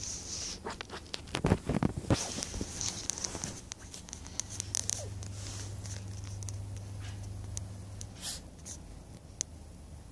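Maltipoo puppy worrying a fabric bolster pillow: irregular scratching, rustling and snagging of cloth as it paws and bites at a loose thread, with a louder scuffle about one and a half to two seconds in.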